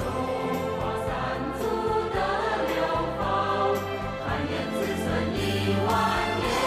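Music with a choir singing, cutting in suddenly out of silence.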